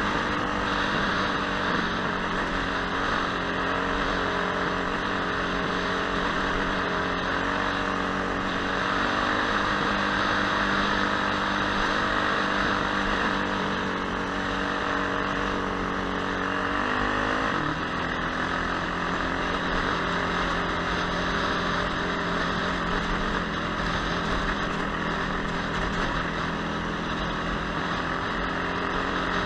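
Dirt bike engine running steadily under way over a steady rushing noise; about two-thirds of the way through, the engine's pitch drops and settles lower.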